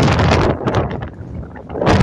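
Gusty wind buffeting the microphone with a low rumble and crackle, easing about a second in and gusting up again near the end.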